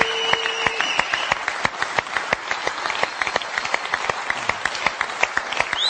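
Studio audience applauding, a dense patter of many hands clapping.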